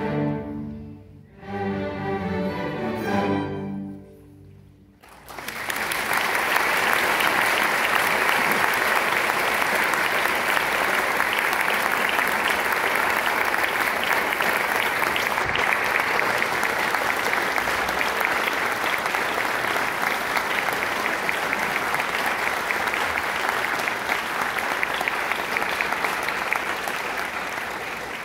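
A student string orchestra plays two held closing chords, then stops. About five seconds in, the audience breaks into steady applause, which eases slightly near the end.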